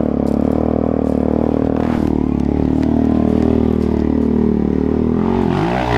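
Motorcycle engine running at a steady speed under throttle. Near the end the revs dip and climb again, as at a gear change.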